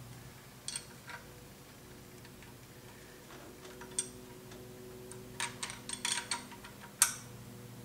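Scattered sharp metal clicks and taps of hand tools on a valve rocker adjuster while the lash is set and the adjuster tightened, with a quick run of clicks near the middle and the loudest click about seven seconds in. A steady low hum runs underneath.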